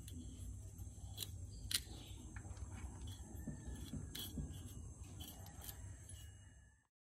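Scattered light metallic clicks as a hand handles a 2014 Honda City's rear wheel hub, over a steady low hum and a faint, steady high-pitched whine. The sound cuts off shortly before the end.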